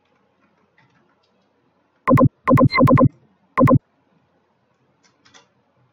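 A short, loud electronic jingle of five quick synthesizer-like notes, four in a fast run and a last one after a brief pause, such as a device notification tone.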